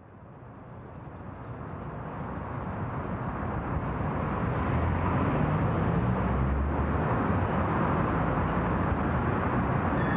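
Outdoor traffic noise, a steady rumbling hiss, fading in over the first few seconds. A deeper rumble swells a little past the middle, as of a heavy vehicle going by.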